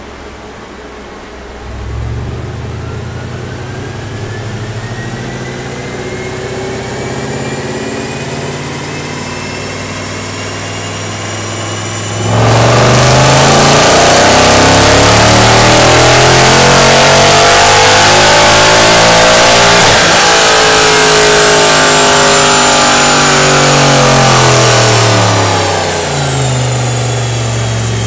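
Mercedes-Benz E63 AMG V8 running on a chassis dyno during a power run after ECU mapping. For about twelve seconds it runs at part throttle with the revs slowly climbing. Then it goes suddenly much louder at full throttle, revs rising for about eight seconds before falling away as the throttle is lifted and the rollers wind down.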